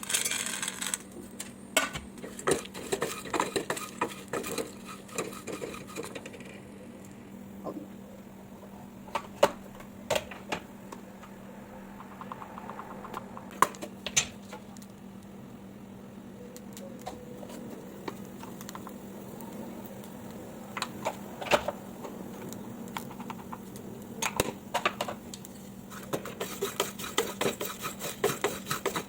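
Metal spoon clinking and scraping against a pan or bowl, in scattered knocks that are busier near the start and end, over a steady low hum.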